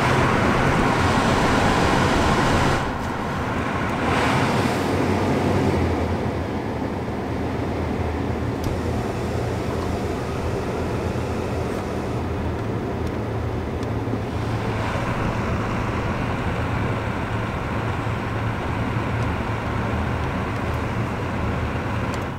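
The 2006 Subaru Legacy's climate-control blower fan blowing air through the dash vents, a steady rush over a low hum. It is loudest for the first few seconds, then drops and shifts in steps as the fan speed and vent mode are switched.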